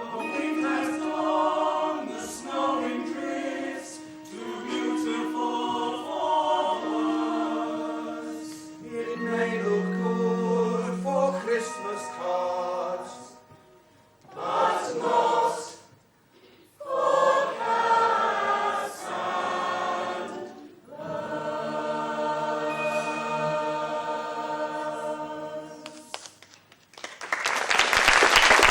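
A stage cast singing a musical number in several voices, with short breaks between phrases. The song ends near the end and audience applause breaks out.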